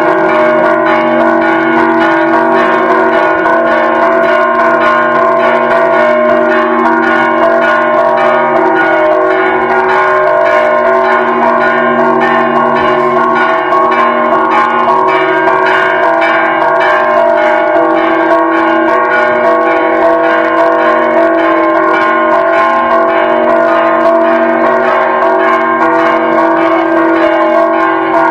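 Church bells ringing loudly and without a break, their tones overlapping into a steady wash of pealing.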